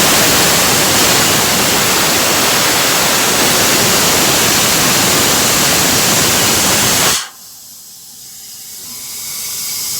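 Compressed air hissing loudly out of a rental air compressor's standard service air valve, cracked open to bleed off the pressure left after shutdown. The hiss cuts off suddenly about seven seconds in, and a much fainter hiss slowly builds near the end.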